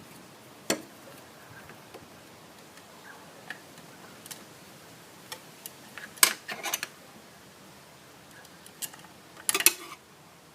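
Scattered sharp metallic clicks and taps of a Torx driver and screws being worked into an ABS module, with a group of clicks about six seconds in and the loudest burst near the end.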